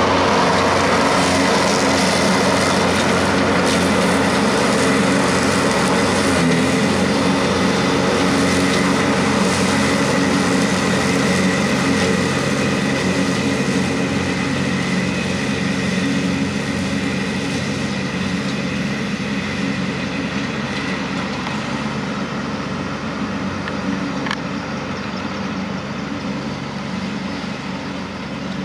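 TYM T264 compact tractor's diesel engine running steadily at about 2,800 rpm, turning the PTO at 540 to drive a 5-foot Phoenix finish mower cutting grass. The sound grows slowly fainter through the second half.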